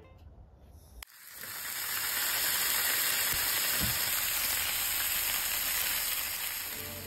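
Pork belly and pork neck slices sizzling on a hot round griddle pan, starting about a second in and building to a steady sizzle that eases slightly near the end.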